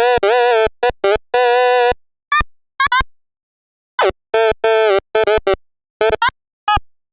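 Electronic stutter effect: about fifteen short, loud bursts of a buzzy synthetic-sounding pitched tone. Each burst cuts off abruptly between silent gaps, a few bend in pitch as they start, and the bursts stop for about a second midway.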